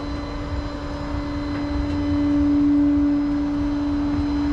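Flatbed tow truck running with a steady whine over a low engine rumble, swelling slightly about two seconds in.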